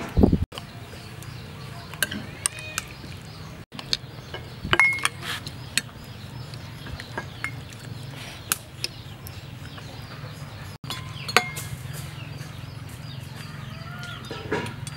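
A metal spoon and ladle clink against ceramic bowls as soup is scooped and served. There are a few sharp clinks spread through, over a steady low hum.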